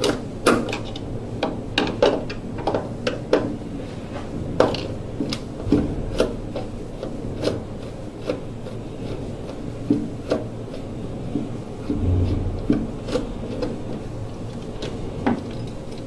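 Irregular clicks, scrapes and knocks of hand work inside a gas furnace's sheet-metal cabinet: a screwdriver backing out the screws that hold the condensate trap, and the trap being worked free and handled. A dull low thump about twelve seconds in.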